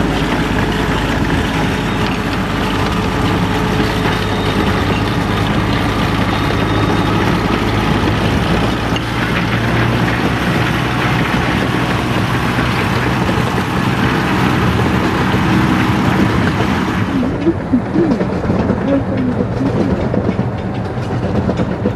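Small diesel locomotive on a 15-inch gauge railway, its engine running at a steady note as it hauls passenger coaches past, with some rail noise from the wheels. About three-quarters of the way in, the sound turns abruptly duller.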